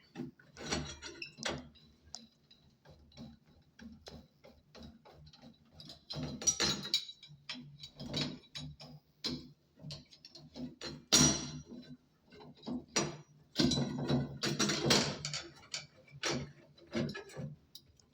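Irregular clicks, taps and short scrapes of a screwdriver working on metal, as the two screws on the Acorn shower valve are backed out, with a few louder clattering bursts.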